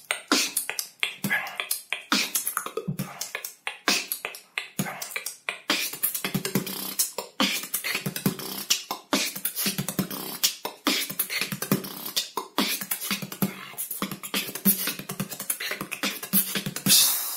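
Solo human beatboxing: a fast, unbroken run of mouth-made drum sounds, low kicks under sharp clicks and snares, ending in a loud hissing burst.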